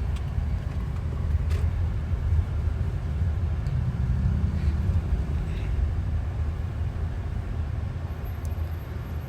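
Airliner cabin noise while taxiing to the runway: a steady low rumble from the engines and the moving aircraft.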